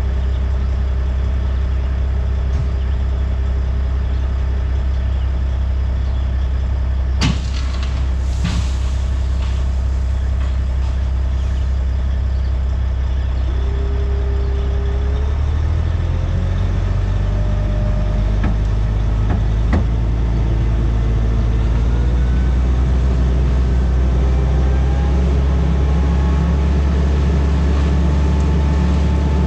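Dump truck's diesel engine idling, with two short hisses of air about a quarter of the way in. From about halfway the engine speeds up steadily and holds a higher, steady pitch as it drives the hydraulics that raise the pup trailer's dump box.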